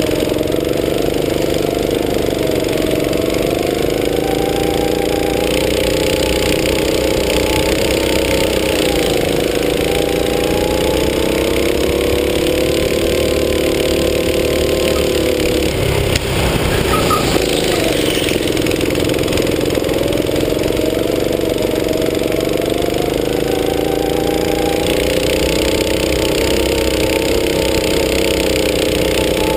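Go-kart engine running as the kart is driven hard, its pitch rising and falling with speed through the corners; just past halfway it drops briefly and then climbs again.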